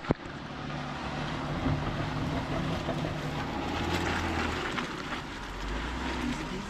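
Off-road vehicle's engine running steadily at low speed, with a low drone and a haze of tyre and trail noise. A sharp click comes right at the start.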